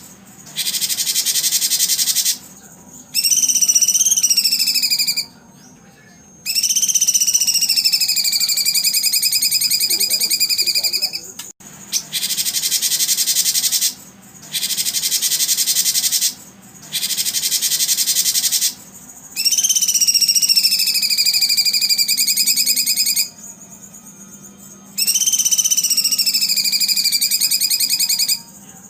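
Recorded birdsong-and-insect audio of the kind played to train contest songbirds. High, buzzing insect-like chirring comes in bursts of about two seconds, alternating with longer pulsed trilling calls that drop in pitch and then hold level. The pattern repeats like a loop.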